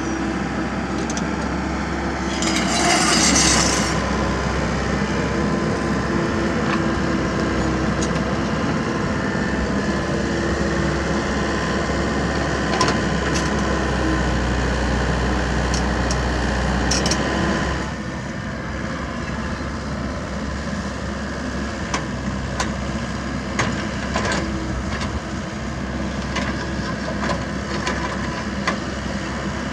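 Komatsu mini excavator's diesel engine running under hydraulic load while it digs and dumps soil, with scattered clicks and knocks from the bucket, earth and stones. There is a brief hiss about 3 s in, and the engine gets quieter about 18 s in.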